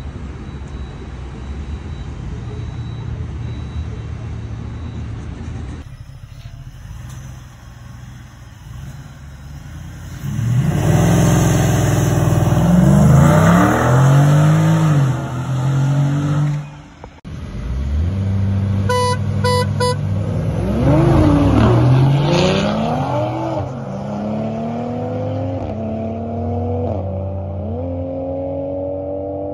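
Ford F-150's 5.0-litre Coyote V8 idling steadily, then running at full throttle: the engine revs up and down hard, then accelerates with its pitch climbing and dropping back at each upshift of the automatic gearbox.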